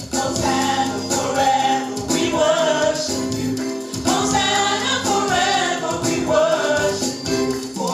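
Gospel choir singing a worship song over steady instrumental backing.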